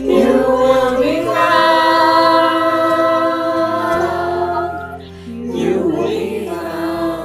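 Middle-school choir of young voices singing long held notes in harmony. The separately recorded voices are mixed together as a virtual choir. The singing dips briefly about five seconds in, then swells into another held chord.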